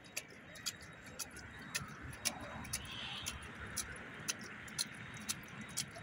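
Water trickling through a small decorative model watermill, a steady hiss with irregular sharp clicks about three times a second.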